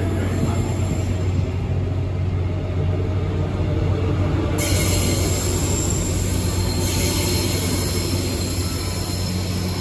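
Queensland Rail SMU 200-series electric multiple unit moving past along the platform: a steady low hum with wheel-on-rail running noise. A brighter hiss comes in about halfway through.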